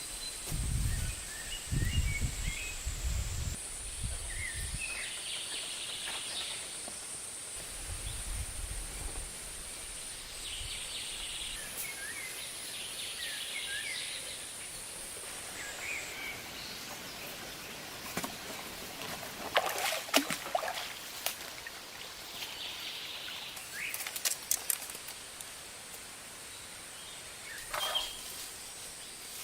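Outdoor forest ambience: birds chirping against a steady high-pitched hiss, with low rumbles in the first ten seconds and a few sharp clicks and rustles in the second half.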